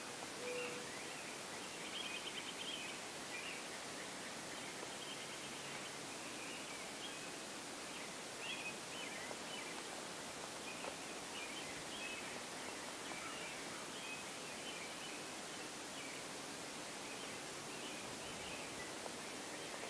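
Spring woodland ambience: small songbirds chirping and singing off and on over a steady background hiss.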